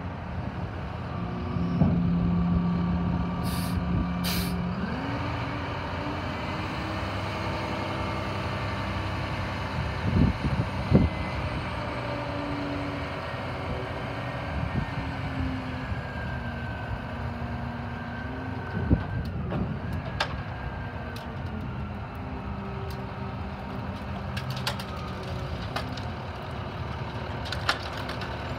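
Dump truck's diesel engine running under load while the hydraulic hoist raises the dump bed, with two short hisses about four seconds in and a few metallic knocks as the bed goes up.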